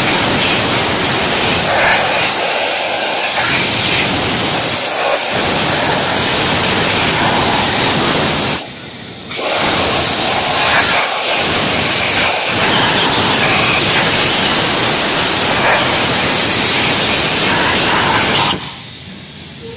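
Loud, steady rushing hiss of air, with no pitch to it. It breaks off briefly about nine seconds in and stops shortly before the end.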